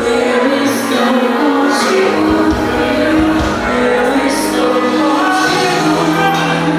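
Worship music with singing over a full band, cymbals crashing now and then, echoing in a large hall.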